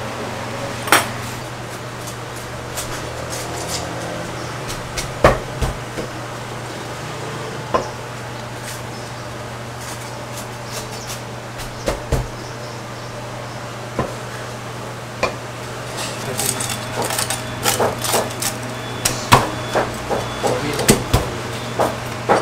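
Heavy Chinese cleaver chopping through crispy-skinned roast pork belly and knocking on a thick wooden chopping block. Single chops come a few seconds apart at first, then a quicker run of chops over the last several seconds, over a steady low hum.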